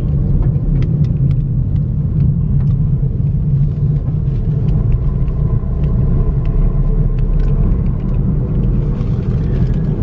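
Steady low rumble of a car driving, heard from inside the cabin: engine and tyre noise on the road, with scattered light ticks throughout.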